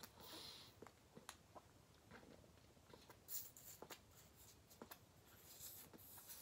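Near silence: faint breaths drawing on and exhaling from a concentrate vape pen, with a few soft clicks of the pen being handled.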